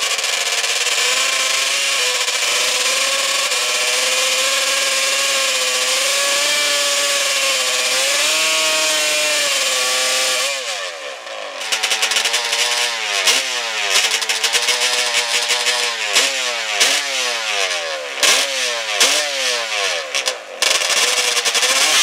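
Drag-racing quad's engine held at high revs during a burnout, the rear tyre spinning and smoking. About halfway through it changes to repeated revs, the pitch climbing and dropping sharply over and over, roughly once a second.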